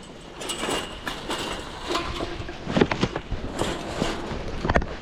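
Irregular crunching and scraping footsteps on icy ground, with a few sharp knocks, the loudest about three seconds in and just before the end.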